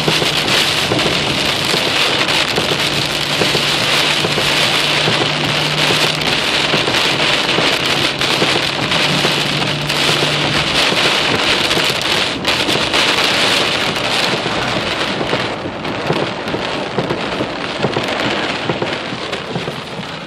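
Heavy rain pouring down during a severe thunderstorm, a loud, steady hiss of rain with a low steady hum underneath for the first half.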